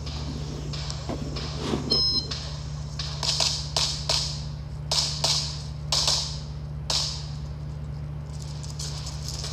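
An electronic shot timer beeps once, about two seconds in. About a second later comes a run of fast pistol shots, many in quick pairs, then a short break while the shooter moves, and a few more shots near the end.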